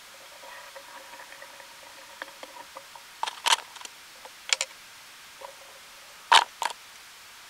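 A few sharp clicks and taps, in ones and pairs, the loudest about six seconds in, over a faint steady hum that fades about halfway through.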